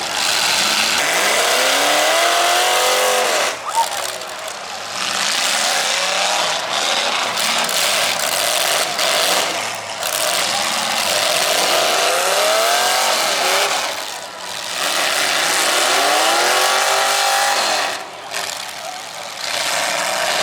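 Combine harvesters' diesel engines revving up and falling back again and again over a steady noisy din, with one sharp bang about three and a half seconds in.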